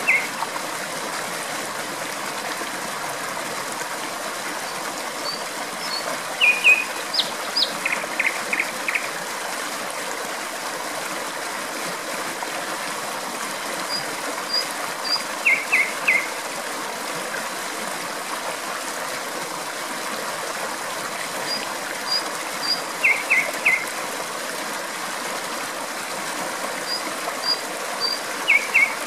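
Steady rush of flowing water, with a nightingale singing over it: short phrases of three or four quick notes and faint high chirps, coming back about every six to seven seconds.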